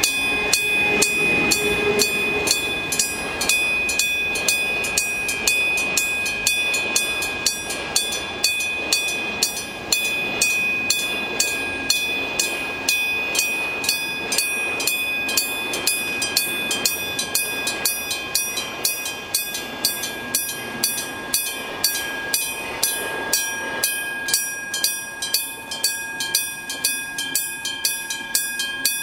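Old electric-bell level crossing warning bell ringing, its striker hitting the bell in evenly spaced strokes a little over two a second. Under it, a Towada Kanko Electric Railway 7700 series electric train (ex-Tokyu 7700) pulls away from the station.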